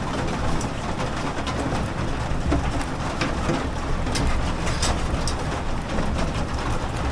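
Heavy rain drumming on the metal body of an armoured vehicle, heard from inside: a steady dense hiss with many sharp individual strikes of drops on the metal.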